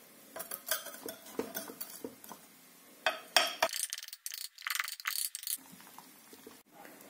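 A knife cutting through a cheese-topped pasta bake in a glass baking dish, tapping and scraping against the glass. A run of short clicks comes first, then a few louder scraping strokes about three to five seconds in.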